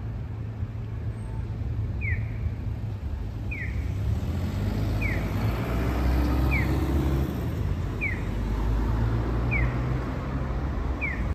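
Street traffic running with a steady low rumble. Over it, a short high chirp falls in pitch and repeats at an even pace, about every second and a half.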